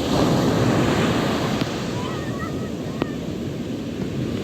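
Atlantic surf washing onto a beach: a steady rush of waves, with wind buffeting the microphone.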